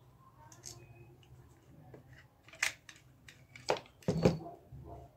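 Scattered plastic clicks and knocks as the two halves of a small wireless speaker's plastic housing are handled and pulled apart, the loudest a dull knock about four seconds in.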